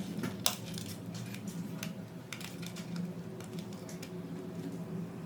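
Scattered sharp clicks and taps of small plastic and metal parts being handled while a CCTV camera housing is worked open, the loudest about half a second in.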